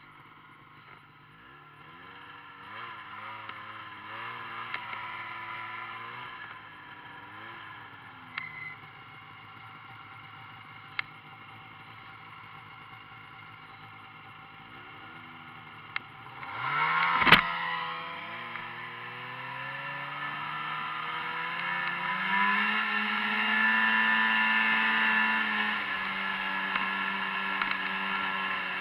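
Snowmobile engines running on a trail, the pitch wavering up and down at low speed. A little past halfway the engine speeds up with a single sharp knock, then holds a steady, higher and louder note near the end.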